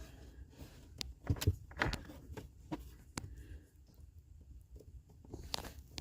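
Faint, scattered clicks, taps and rustles of hands handling a plastic zip tie, wiring harness and bracket behind the car's dashboard trim.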